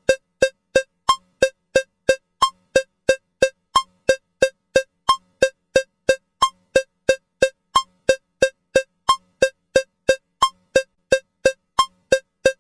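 Metronome clicking with a cowbell sound at 180 beats per minute: short, evenly spaced ringing strikes, three a second.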